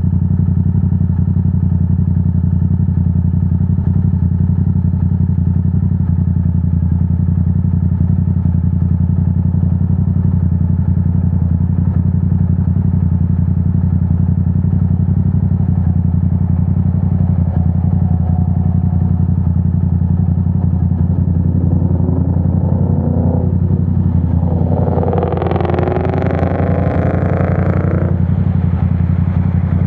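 Yamaha R7's parallel-twin engine through a Yoshimura AT2 full exhaust, running at a steady, unchanging speed, most likely idling. About two thirds of the way in, a separate louder noise with higher tones rises and falls over several seconds.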